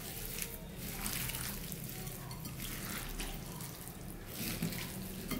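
A hand squishing and kneading wet, spice-marinated chicken pieces together with dry flattened rice flakes (poha) in a glass bowl: repeated wet squelching and rustling strokes, over a low steady hum.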